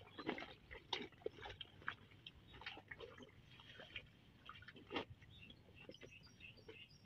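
Faint, irregular crackling and rustling as a sack is handled among leaves and wet ground, with a few sharper clicks.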